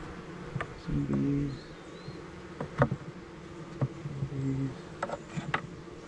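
Honeybees buzzing around an opened hive box, with single bees droning close past twice, about a second in and again past four seconds. A few sharp clicks from the wooden hive box being handled.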